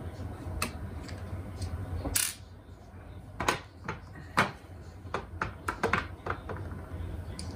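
Scattered small clicks and taps of a screwdriver and tiny screws as a laptop's bottom-panel screws are taken out, with a short scraping rush about two seconds in and a faint steady hum underneath.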